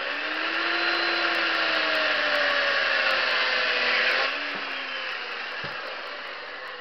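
Chainsaw cutting into a block of wood, its pitch slowly sagging under the load. About four seconds in it drops off and runs on quieter, winding down.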